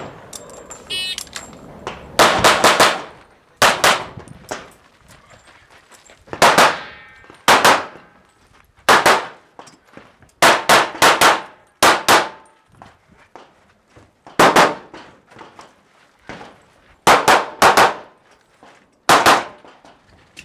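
Handgun shots, about twenty in all, fired singly, in pairs and in quick strings of three or four, with pauses of one to two seconds between groups; each shot is sharp and leaves a brief ringing tail.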